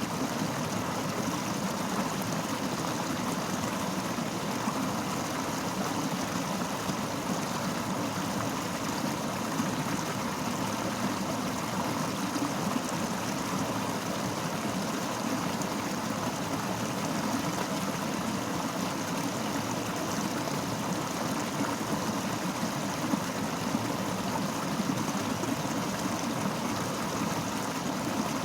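Fast-flowing river rushing steadily over rocks, an even continuous wash of water noise.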